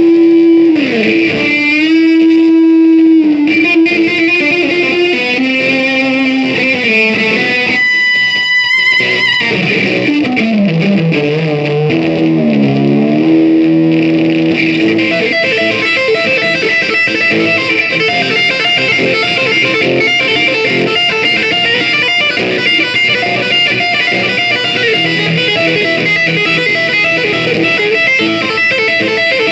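Band music led by an electric guitar: long held, sliding and bending lead notes, then a fuller, busier band texture from about halfway.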